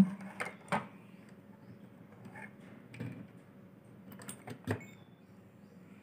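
A few scattered clicks and small knocks over quiet room tone: wires being handled and pushed into a switchboard socket as mains power is switched on to a fan regulator circuit board.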